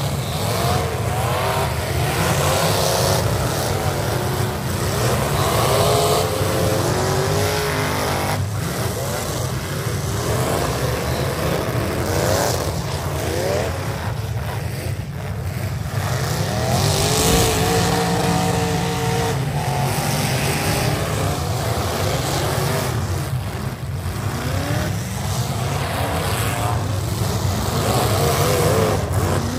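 Several V8 demolition derby cars revving hard together, their engine notes rising and falling over one another, with scattered bangs of cars hitting.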